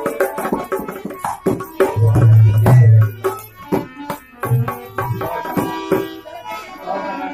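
Dholak drumming in a quick rhythm of sharp strokes and deep bass booms, the loudest a long bass stroke about two seconds in, with a harmonium playing sustained notes underneath. The drumming thins out near the end.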